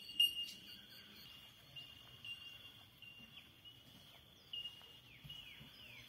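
Insects trilling steadily in a high, pulsing chorus, with a few short falling bird calls in the second half. A sharp click comes about a quarter of a second in.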